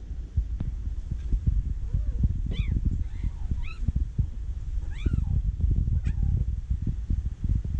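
Cat meowing three times, short rising-and-falling calls about a second apart, over a steady low rumble.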